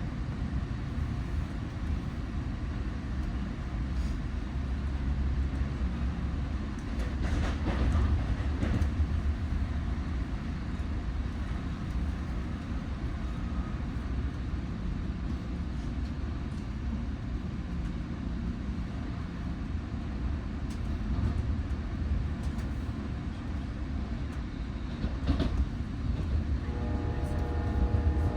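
A train passing, a steady low rumble with a few louder knocks; a pitched sound comes in near the end.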